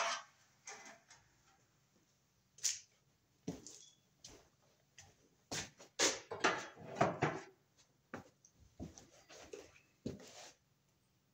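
Irregular clicks, knocks and rattles of hands working with metal-clad (MC) cable and its fittings, in clusters of a few strikes with short rustles between them.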